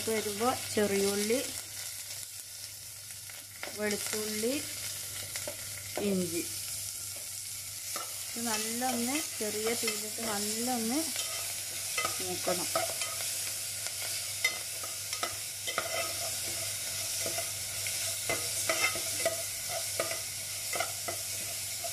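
Crushed ginger, shallots and garlic sizzling in hot coconut oil in an aluminium pot as a rasam tempering fries, with a metal spoon stirring and clinking against the pot.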